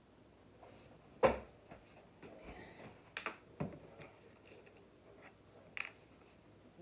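Clicks and knocks of a vinegar bottle and tablespoon being handled while measuring, with one sharp knock about a second in and a few lighter clicks after it.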